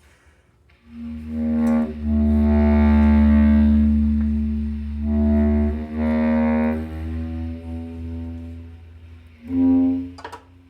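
Experimental new-music ensemble performance: long held notes over a steady low drone, swelling and fading, with a last short swell about ten seconds in before the music stops.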